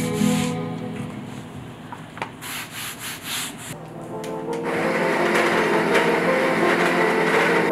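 An espresso machine's pump runs with a steady, noisy buzz from about five seconds in, the loudest sound here, over soft background music. Before it come a few soft rubbing and brushing sounds.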